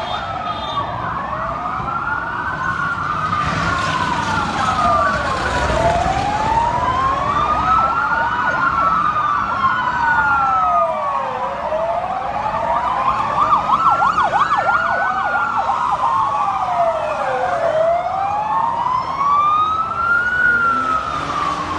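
Several police car sirens wailing at once, their slow rising and falling tones overlapping out of step. About two-thirds of the way through, one switches briefly to a fast yelp.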